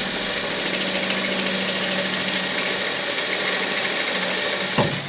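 Cordless drill running steadily under load, a step bit widening a hole in the thin sheet metal of a pickup bed side: a constant motor tone under a harsh metal-cutting grind, with a short knock near the end.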